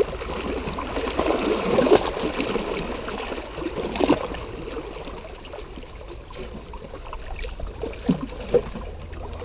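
Small sea waves lapping and washing over shoreline rocks, an uneven wash of water with louder swells about two and four seconds in.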